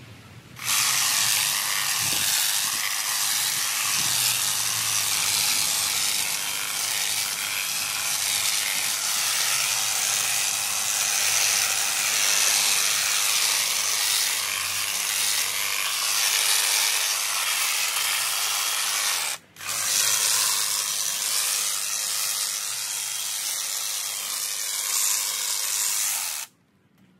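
Honda HHH 36 AXB cordless hedge trimmer running and cutting through hedge foliage, its reciprocating blades chattering steadily. It stops for a moment about two-thirds through, starts again, and is switched off shortly before the end.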